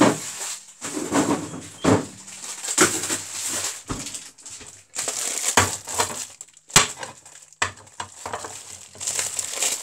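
Clear plastic bag of ready-chopped onions crinkling and rustling as it is handled, in irregular bursts, with one sharp knock about seven seconds in.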